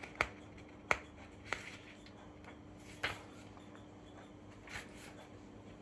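Pages of a small book being leafed through: a few short, crisp paper rustles and flicks spaced a second or so apart, over a faint steady hum.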